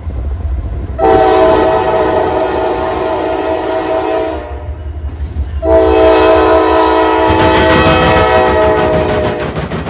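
Diesel locomotive air horn on a Norfolk Southern AC-44C6M sounding two long chord blasts, the first about a second in and the second from about midway to near the end. A low, steady rumble of the train runs beneath.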